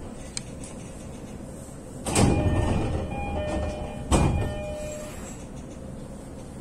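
A standing electric commuter train: two sudden loud bursts of noise about two seconds apart, each fading over about a second with some ringing tones, over the train's steady low background.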